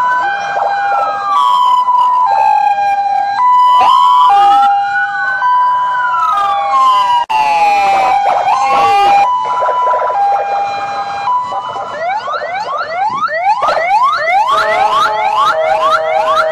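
Several ambulance and escort-vehicle sirens sounding together, loud. A two-tone hi-lo alternates about every half second, over long rising and falling wails. From about twelve seconds in, a fast yelp sweeps upward about three times a second.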